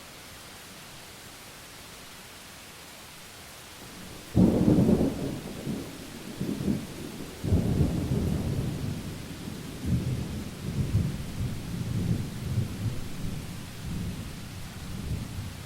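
Thunder: a sudden loud crack about four seconds in, a second surge a few seconds later, then a long rolling rumble that rises and falls before fading out, all over a steady faint hiss.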